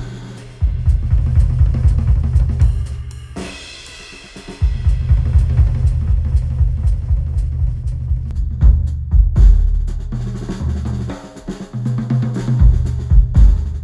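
Instrumental music with a full drum kit (kick, snare, hi-hat and cymbals) over heavy bass, played through Sennheiser headphones and recorded by microphones. About three and a half seconds in, the beat drops out for roughly a second, then comes back in full.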